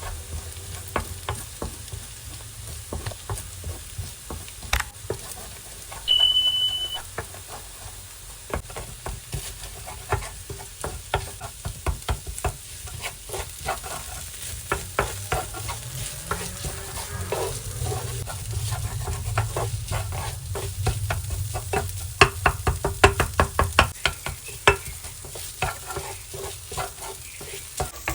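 Okra and egg stir-fry sizzling in a pan while a spatula stirs it, with many quick clicks and scrapes of the spatula against the pan, coming thicker in the second half. A short high tone sounds once, about six seconds in.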